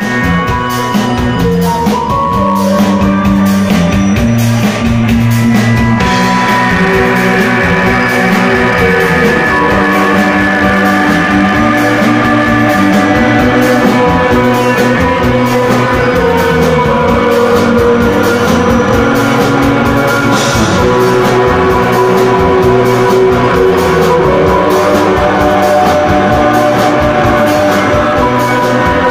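Live rock band playing: electric guitars holding long, layered notes over a drum kit, loud and continuous, growing fuller about six seconds in.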